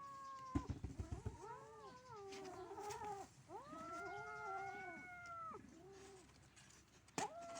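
Kitten growling and yowling in long wavering wails, a sign of it guarding its food. A rapid low pulsing growl in the first second or so gives way to several drawn-out yowls, with a fresh yowl starting abruptly near the end.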